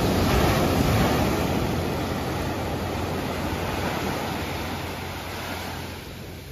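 Rushing noise of ocean surf and wind on the microphone, loudest in the first second or two and then slowly dying away.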